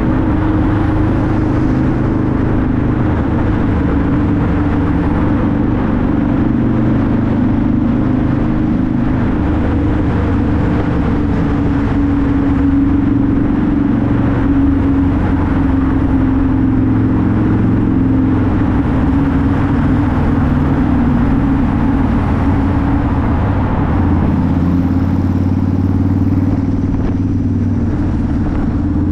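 Harley-Davidson V-Rod's liquid-cooled Revolution V-twin running at a steady cruise, heard from the rider's seat, with road noise and surrounding traffic in a road tunnel. About 24 seconds in the engine note drops lower as the bike leaves the tunnel for the open road.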